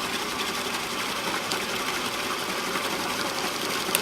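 Drill press running a horizontal belt sander jig, the sanding belt turning steadily and freely without rubbing or drifting. A sharp click near the end.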